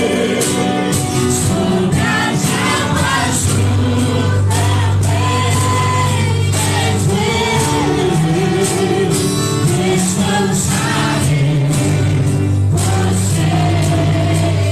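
Christian worship song played by a band, with sustained bass notes and regular drum and cymbal strokes under a group of voices singing.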